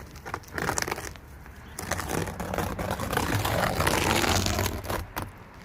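Roll roofing scraping and crackling as a utility knife cuts out a piece. There is a short burst about half a second in, then a longer, louder stretch that dies away near the end.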